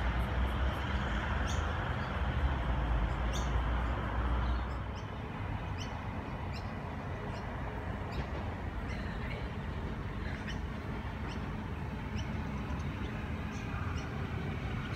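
Short, high bird chirps repeat every second or so over a low rumble, which drops away about five seconds in. Near the end, the rising sound of an approaching V-set double-deck electric train comes in.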